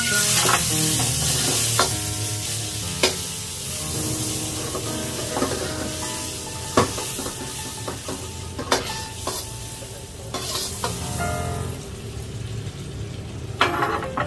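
Food sizzling in a hot pan while being stirred, with a cooking utensil clicking against the pan about ten times. The sizzle is loudest in the first two seconds.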